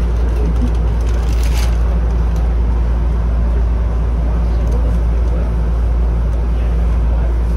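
Steady low hum and rumble inside a Chichibu Railway 7500 series electric train, with a few short clicks and a brief hiss about a second and a half in.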